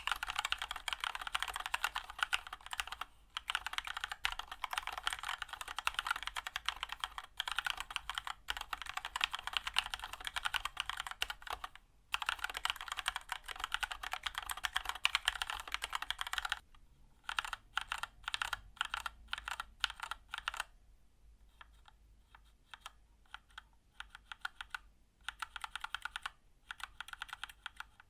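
Keychron K2 mechanical keyboard with Keychron red linear switches being typed on. For about sixteen seconds the typing is fast and continuous, with two short breaks. Then it slows to scattered keystrokes with pauses, goes nearly quiet for a few seconds, and picks up again near the end.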